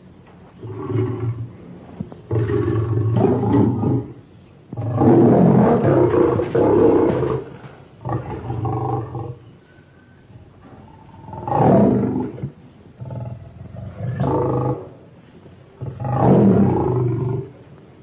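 Lion roaring in a series of about seven separate calls, each one to two and a half seconds long, the longest and loudest a third of the way in.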